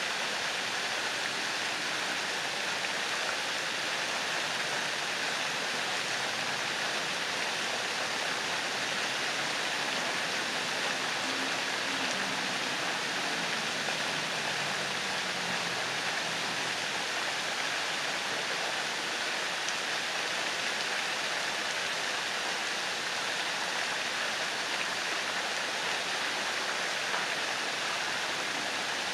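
Pond fountain jets spraying and splashing back into the water: a steady, even rush of falling water.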